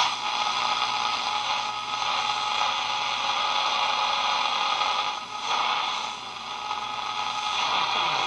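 Zenith K421W radio on AM giving out a steady hiss of static between stations as the dial is tuned, dipping briefly twice a little after halfway.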